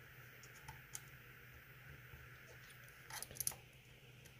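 Faint clicks of a lock pick working the security pins inside a pin-tumbler lock, with a few soft ticks about a second in and a short cluster of louder clicks about three seconds in, over a steady low hum.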